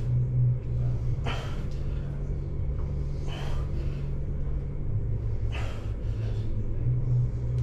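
Short, forceful breaths, one about every two seconds, from a man straining through seated dumbbell curls, over a steady low hum.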